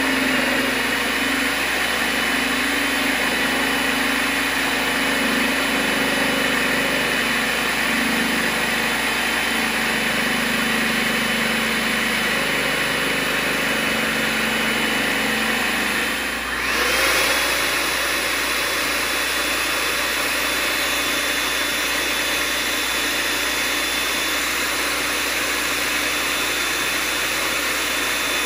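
Veggie Bullet electric vegetable slicer's motor running steadily with a high whine as it shreds collard greens pushed down its chute. About two-thirds of the way through the whine dips briefly, then spins back up to a slightly higher pitch.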